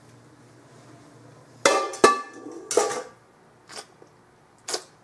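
Dishes being washed in a kitchen sink: ceramic mugs and a bowl clink and knock together. A cluster of sharp, briefly ringing clinks comes about two seconds in, followed by a few fainter clicks.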